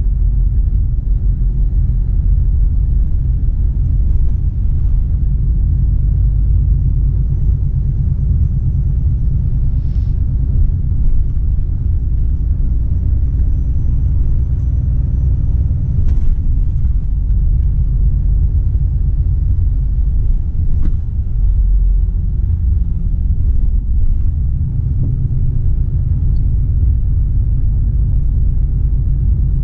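Low, steady rumble of a Volvo FH 460 truck heard inside the cab while driving: its 13-litre six-cylinder diesel and road noise, with a few faint clicks.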